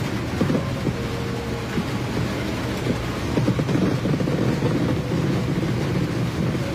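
Fireworks display with many shells bursting in quick succession: a steady low rumble of overlapping booms, thickest around the middle.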